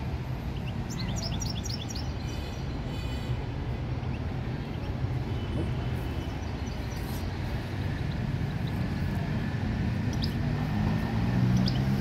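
Steady low rumble of city traffic, with a caged finch giving a quick run of high falling chirps and a short repeated trill about a second in, then a few faint chirps later.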